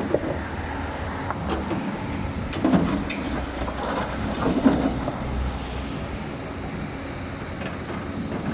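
Excavator at work: a steady engine rumble with occasional knocks.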